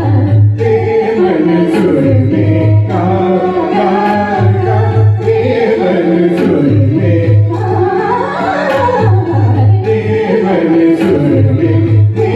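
A woman singing a Hindi film song through a microphone and PA, her melody gliding up and down in long phrases, over a recorded accompaniment with a low, pulsing bass.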